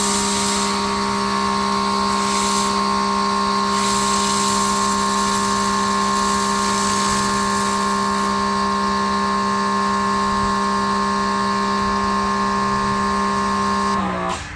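Greenworks 2300 PSI electric pressure washer running steadily through the MJJC foam cannon: an even motor hum under the hiss of the spray, which shifts a few times. It stops abruptly near the end.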